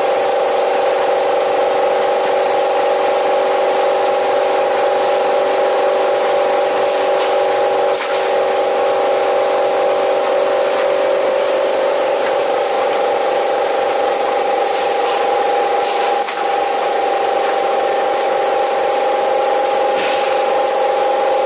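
Toilet roll rewinding machine running: a steady whine of several held tones over a constant hiss, unchanging throughout.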